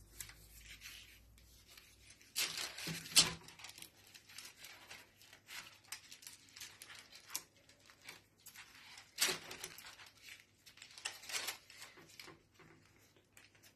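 Baking paper rustling and crinkling in short, irregular bursts as a sheet of puff pastry is unrolled from its paper and smoothed flat, with one sharp click about three seconds in.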